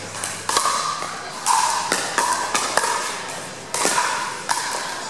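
Pickleball rally: paddles striking the plastic ball back and forth, about seven sharp knocks roughly half a second to a second apart, several with a short ring after them.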